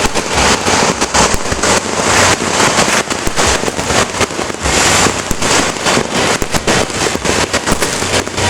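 Dense, continuous volley of New Year's firecrackers and fireworks going off: many rapid overlapping bangs and crackles with no pause, one especially loud bang just after the end.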